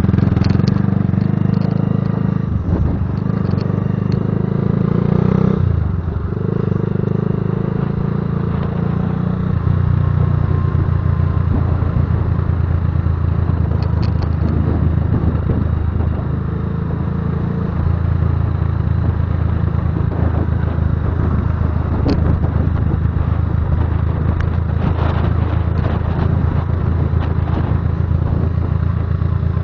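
Patagonian Eagle cruiser motorcycle's engine and exhaust running with a deep rumble under way. The engine note changes a few times in the first ten seconds, then holds steady.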